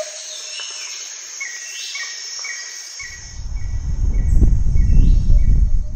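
Jungle sound effects for an animated logo: short insect-like chirps repeating evenly, about two or three a second, with a few rising bird-like calls over them. A deep rumble swells up about halfway through and becomes the loudest sound.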